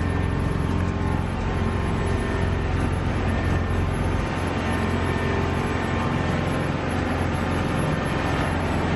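An engine running steadily with a constant low hum and rumble, as from riding in or on a motor vehicle.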